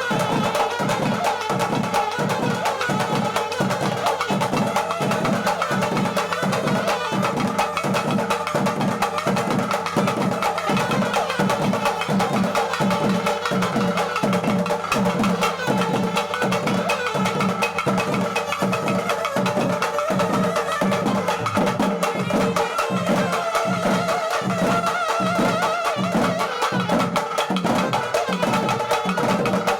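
Music: an even drumbeat at about one and a half strokes a second under steady held melody tones.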